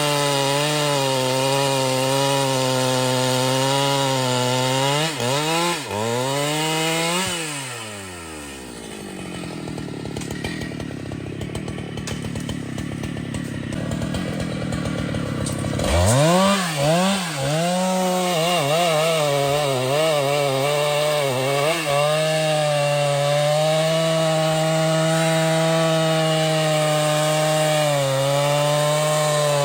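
Chainsaw running at full throttle, cutting wood. About seven seconds in the throttle is released and the engine winds down to a quieter stretch. It revs back up about sixteen seconds in and runs steadily under load again.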